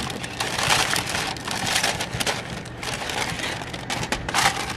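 Parchment Dutch oven liner crinkling and rustling in irregular bursts as it is pushed down into the pot with a spoon.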